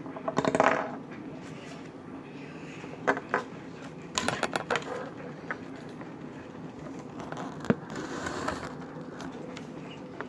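Small plastic building pieces being handled, clicking and rattling against each other and the tabletop in scattered short bursts, with one sharp click about three-quarters of the way through.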